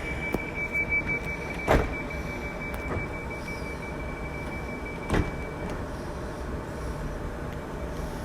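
Railway platform ambience with a train: a steady high-pitched tone that stops about six seconds in, over a constant rumble, with two sharp knocks, about a second and a half and five seconds in.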